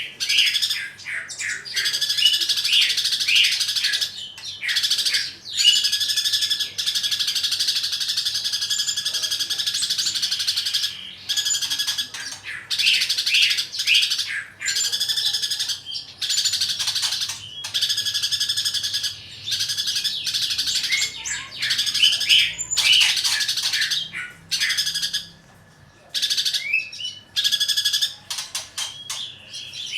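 Greater green leafbird (cucak ijo) singing in fighting mode: runs of rapid, loud chattering song lasting several seconds each, broken by short pauses, packed with house-sparrow-like chirps.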